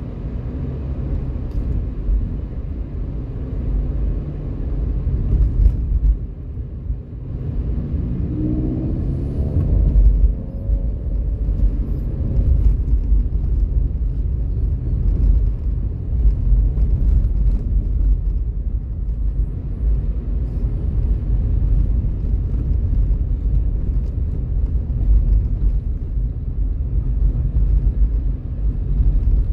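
Car cabin road noise while driving: a steady low rumble of tyres and engine, with a brief dip about six seconds in followed by a rising engine note as the car picks up speed.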